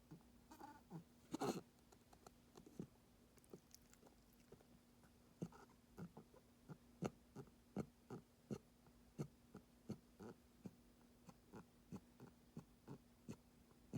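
A pet's short rough cough about a second in, then a long run of soft wet clicks at about two a second.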